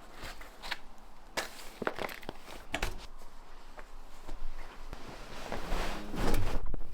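Scattered light knocks, clicks and rustles from household items being handled in a small room, irregular and unpitched.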